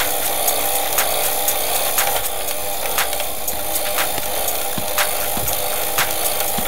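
ABC-Mix electric hand mixer running steadily with its dough hook kneading a ball of dough, a motor whine with sharp clicks about twice a second.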